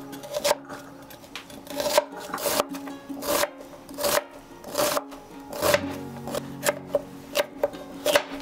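Chef's knife slicing an onion and then a yellow bell pepper on a wooden cutting board, a sharp knock on the board with each cut. The cuts come slowly at first and quicker near the end, over light background music.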